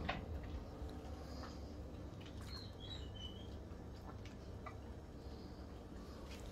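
Faint, scattered wet clicks and smacks of a Siberian husky licking peanut butter, with a few brief high chirps about two and a half to three seconds in.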